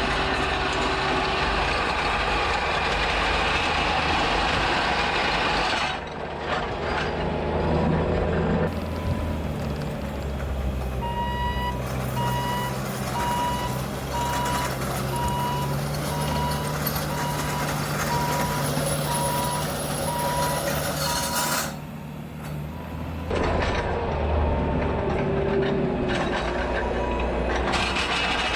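Bobcat T650 compact track loader's diesel engine working under load while its SR3 grading attachment tears through compacted gravel. For about ten seconds in the middle, a reverse alarm beeps about once a second as the machine backs up. The sound shifts abruptly a few times.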